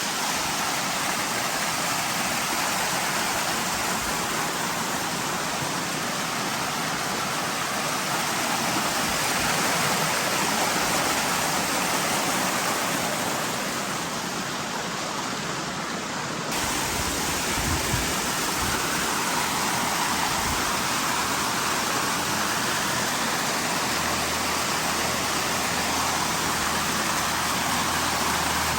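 Spring water rushing and splashing down a stone channel, a steady hiss of running water. A low steady hum joins in near the end.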